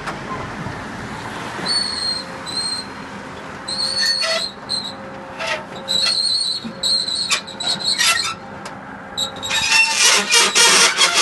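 Metal roller shutter running with repeated high-pitched metal squeals over a steady low hum. About three-quarters of the way through, a louder, dense rattling clatter takes over.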